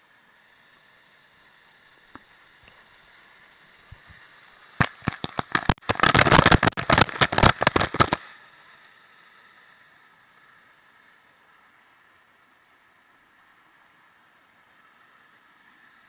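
Waterfall rushing faintly and steadily. From about five to eight seconds in, a loud run of irregular crackling hits as falling water splashes directly onto the microphone.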